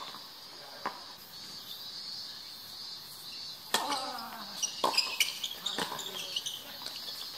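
Tennis rally: sharp pops of a tennis ball struck by rackets and bouncing on the hard court, a faint one about a second in and the loudest about four seconds in, followed by a quick run of hits and bounces. A player calls out briefly just after the loud hit, over a steady, high-pitched insect drone.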